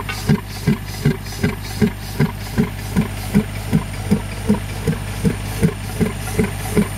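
Pneumatic soil-piercing tool (impact mole) hammering slowly in its launch trench: dull, even blows about two and a half times a second, over a steady engine hum.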